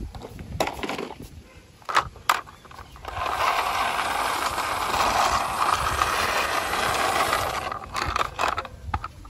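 Plastic toy police car handled with a few knocks, then pushed by hand across rough concrete, its wheels giving a steady rolling noise for about five seconds before it stops.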